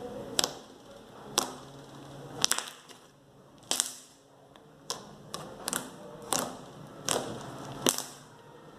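Slime being squeezed and folded by hand, giving about ten sharp, irregularly spaced clicks as pockets of trapped air pop.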